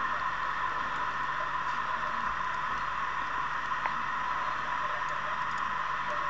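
A steady hiss, with a single faint click of metal knitting needles about four seconds in.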